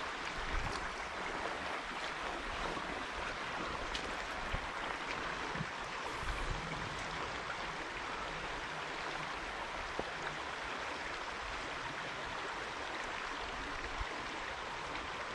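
Small trout creek flowing steadily, an even rushing hiss of running water, with a few faint brief clicks.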